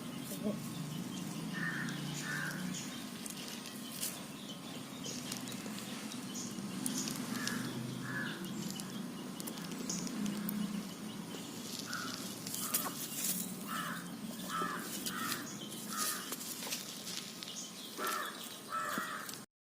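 Short bird calls, often two in quick succession, repeated many times over a steady low background hum; the sound cuts off abruptly near the end.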